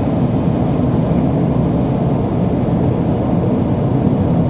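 Steady road noise of a moving car, heard from inside the cabin.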